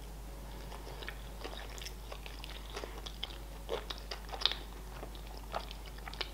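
A mouthful of sushi roll being chewed: irregular small wet clicks and soft crunches, the loudest about four seconds in.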